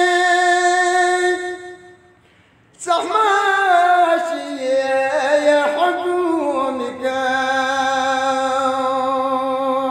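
A single voice chanting a Balti devotional qasida unaccompanied. It holds a long note that breaks off about a second and a half in, and after a short breath a new phrase comes in near 3 s. The phrase winds downward in ornamented turns and settles onto a long steady held note.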